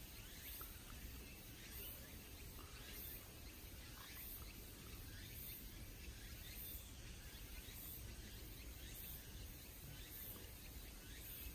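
Faint outdoor ambience: a steady low rumble with scattered faint high chirps throughout.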